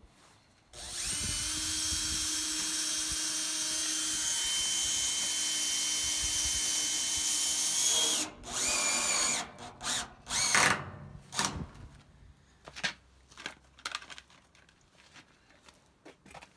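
Cordless drill running steadily for about seven seconds with its bit in a corrugated metal roofing panel, then several short bursts of the motor. Light clicks and knocks of handling follow.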